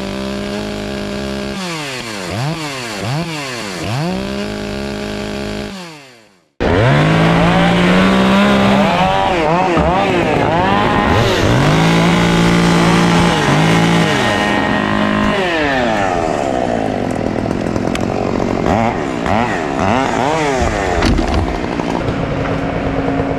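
Stihl professional chainsaw running and revved repeatedly, its engine note rising and falling with each blip of the throttle. About six seconds in the sound dies away to silence, then a chainsaw comes back much louder and is revved over and over, a run-up to check that the new saw's chain oiler is working.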